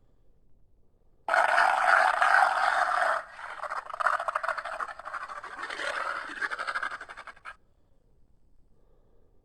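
Creature sound effect made from Hyaenodon sounds: a harsh, noisy call of about two seconds that starts suddenly, then after a short break a longer, rough, pulsing growl that cuts off abruptly.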